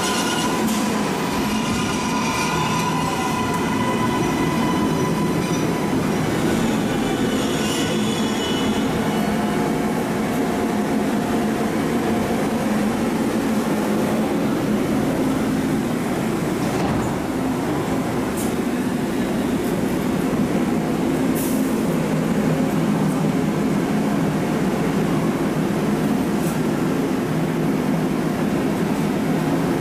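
MARTA rapid-transit train braking into an underground station. For the first ten seconds or so a falling whine from the drive and squealing wheels rides over the rumble of the cars. Then the train rumbles steadily as it comes to a stop, with a few short high-pitched hisses later on.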